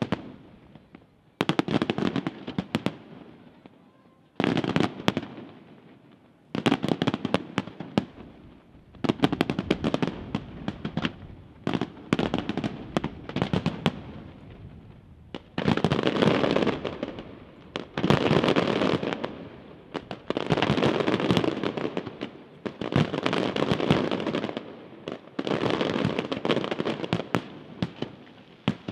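Aerial firework shells going off in salvos: clusters of bangs and dense crackling, a new volley every two to three seconds.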